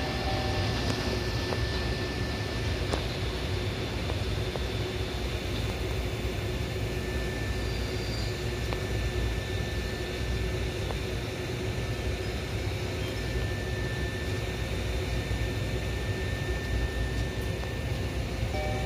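Steady low rumble and hiss of trains at a railway station, with a faint steady hum and no distinct wheel clacks.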